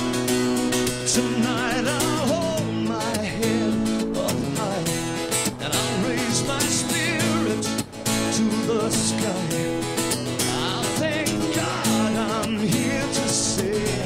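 Background music: a song with strummed acoustic guitar and a singing voice.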